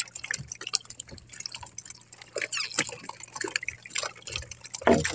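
Irregular small splashes, drips and taps of water as a multi-hook fishing line loaded with small hooked fish is hauled by hand out of the sea into an outrigger boat. A louder brief sound comes near the end.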